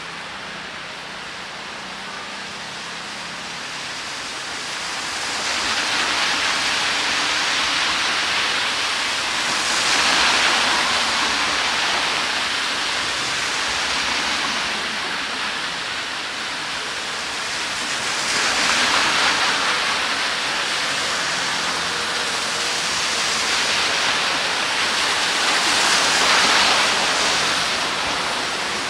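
Steady rain with the hiss of tyres on a wet street, swelling four times as vehicles pass.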